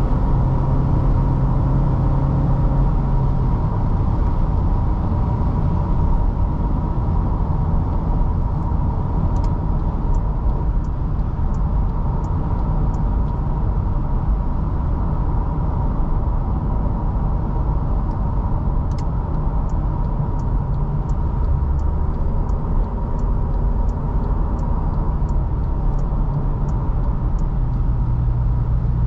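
Toyota Fortuner's 2.7-litre naturally aspirated four-cylinder petrol engine and road noise heard from inside the cabin while driving, a steady low hum whose pitch shifts a few times with engine speed. Twice, a run of sharp, even ticks about two a second: the turn-signal indicator.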